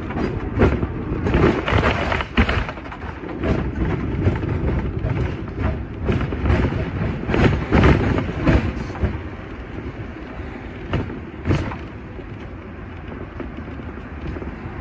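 Sixth-generation teak-bodied Hong Kong tram running along its rails, heard from on board: a rattling rumble of wheels and body with many clunks over the track, thickest in the first half as it crosses a junction of points, then a steadier rumble with a couple of sharp knocks.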